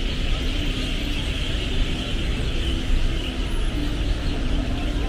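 Steady city road traffic: passing cars and other motor vehicles running continuously, with no single event standing out.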